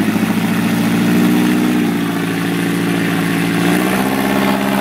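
Rock crawler buggy's engine running at low revs as the buggy climbs a rock ledge, the pitch stepping up slightly near the end.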